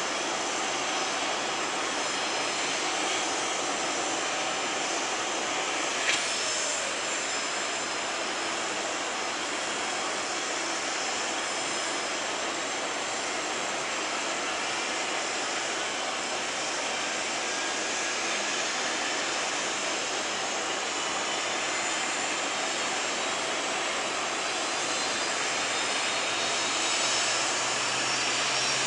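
Canadair CRJ-200 regional jet's turbine engines on the ground during engine start: a steady rush of jet noise with a faint high whine. There is one short sharp click about six seconds in, and the sound grows louder near the end.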